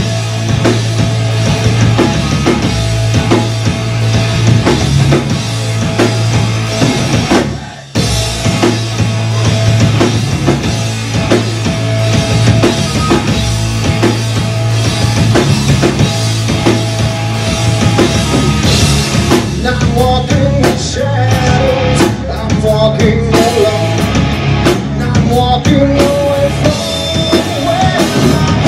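Live rock band playing an instrumental passage on electric guitar, bass guitar and drum kit. About seven and a half seconds in the music briefly drops away, then the whole band comes back in together.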